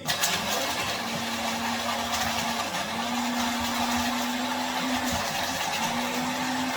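Electric kitchen grinder's motor switching on and running, grinding Oreo cookies into crumbs. Its steady hum dips in pitch briefly twice, about a third and three quarters of the way through, as the load bogs it down.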